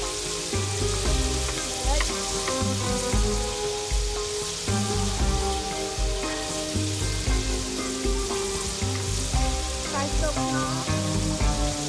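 Food frying with a steady sizzle, under background music with a bass line and held notes.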